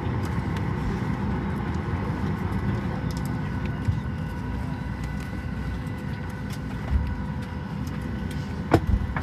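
Boeing 737 MAX 8 cabin noise while parked: the steady rumble of the air supply, with a faint steady whine. A few knocks break through, the loudest near the end.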